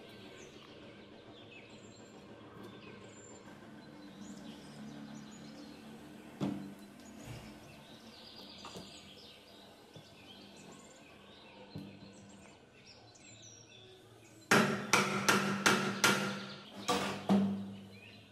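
Sharp metal knocks from reassembling an electric water pump's rotor and cast end housing: a single knock twice, then a quick run of about eight loud knocks with a short metallic ring over some three seconds near the end. Birds chirp faintly in the background.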